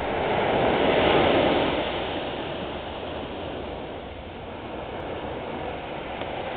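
Small waves breaking and washing up a sandy beach, the surf swelling about a second in and then easing to a steady wash.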